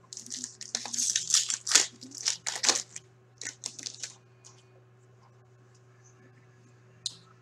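Foil wrappers of hockey card packs crinkling and tearing as they are ripped open by hand, dense for about three seconds, then a few short rustles and quiet until one more brief crackle near the end.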